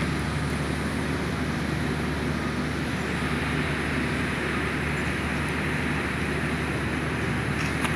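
Steady road traffic noise, an even blend of low engine hum and tyre hiss with no single vehicle standing out.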